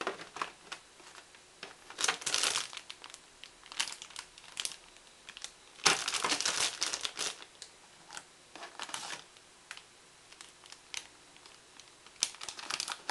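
Clear plastic parts bags crinkling in irregular bursts as they are picked up and handled, the loudest stretch about six seconds in, with small clicks and knocks in between.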